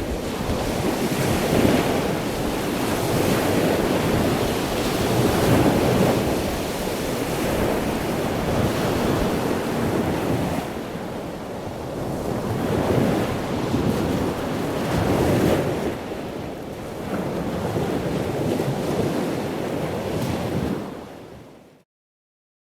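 Ocean surf: waves washing in and drawing back in swells every few seconds. The sound fades out to silence near the end.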